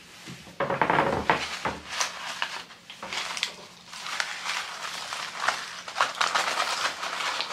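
Eating sounds close to the microphone: chewing and crunching of fries and sandwiches, with scattered short clicks and crackles from paper wrappers and packaging being handled.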